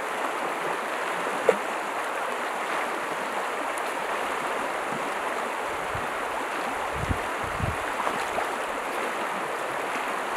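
Steady rush of the Rio Grande's flowing water rippling past the bank. A single sharp click comes about a second and a half in.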